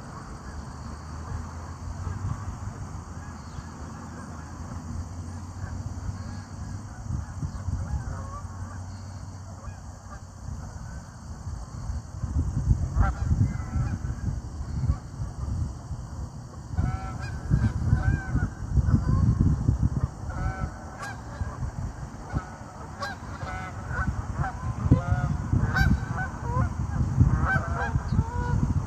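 A flock of geese honking: scattered calls at first, then many overlapping honks from about halfway through, over a steady low rumble.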